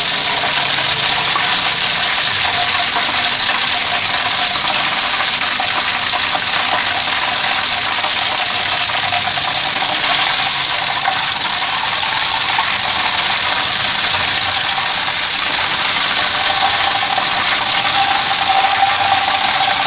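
Flour-coated chicken pieces deep-frying in hot oil in a wok: a steady, dense sizzle with fine crackling.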